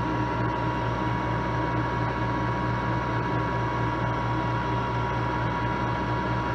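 Manual engine lathe running with its spindle turning the workpiece: a steady hum with a constant high-pitched whine.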